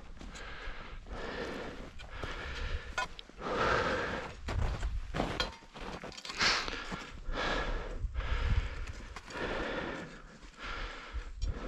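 A person breathing hard in and out, a puff about every second, as a climber does on a steep ascent. A low rumble of wind on the microphone runs underneath.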